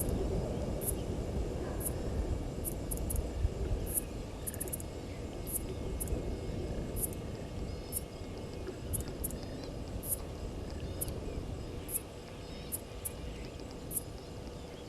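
A low, distant engine rumble slowly fading away, with short, very high insect chirps at uneven intervals.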